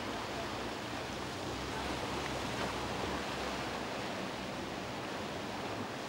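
Sea waves washing against a rocky shore, a steady rushing noise.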